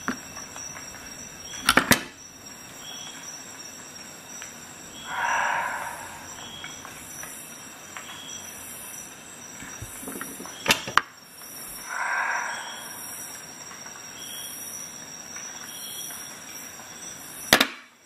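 Sharp metallic clicks of a multi-tool being handled, three times (the first a quick double), with two softer, second-long rasping sounds between them.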